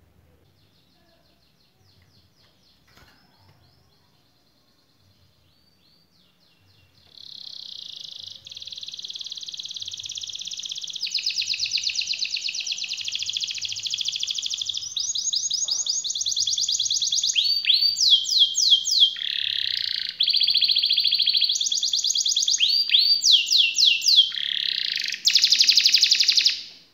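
Domestic canary singing: a few soft notes, then from about seven seconds in a loud, unbroken song of fast rolling trills, the kind canary keepers call 'ngerol panjang' (a long roll). It switches between trill types, with quick falling sweeps in the later part, and cuts off suddenly at the end.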